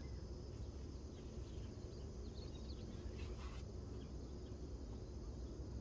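Faint outdoor ambience: a steady high chirring of insects over a low rumble, with a few faint short chirps around the middle.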